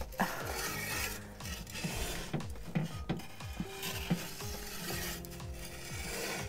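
Long-handled metal pizza peel scraping and tapping on the baking stone of a wood-fired pizza oven as the pizza is turned on it.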